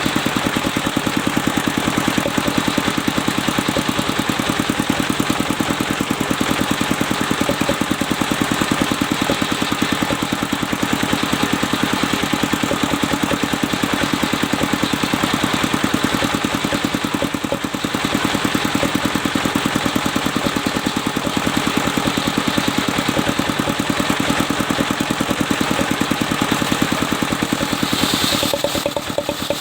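Circular-saw sawmill running, its engine chugging fast and evenly throughout, with a change in tone near the end.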